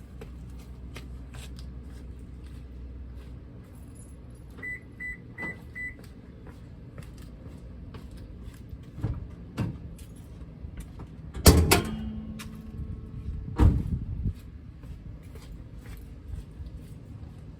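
A car chime beeps four quick times, then come soft knocks and two loud thumps, the first with a short metallic ring: a Toyota Corolla's hood being released and opened.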